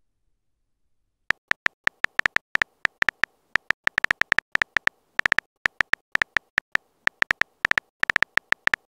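Phone keyboard key-press clicks as a text message is typed: a quick, uneven run of short, high ticks starting about a second in.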